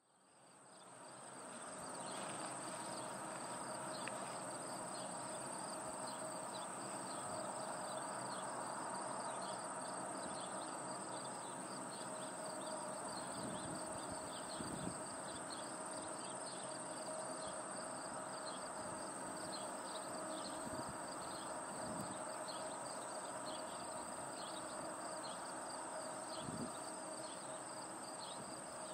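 Summer outdoor ambience of a steady insect chorus: a continuous high trill with many short chirps over it and a faint steady hum beneath. It fades in over the first couple of seconds.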